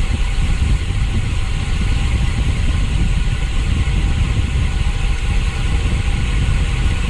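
Loud, steady wind rumble on the microphone from riding a road bike hard, with a rushing noise above it.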